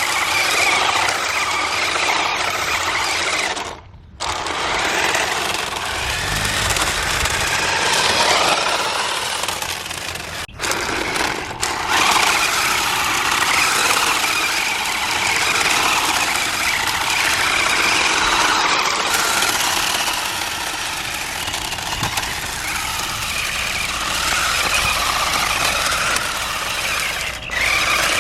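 A remote-control drift car running on pavement: its electric motor whines and its hard plastic drift tires scrape and slide over rough asphalt. The sound is steady, with three brief drop-outs.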